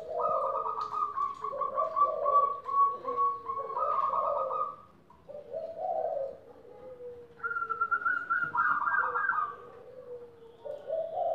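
Several caged zebra doves (perkutut) cooing at once, their songs overlapping: quick rolling coos over lower, slowly falling notes, in phrases with short breaks between them.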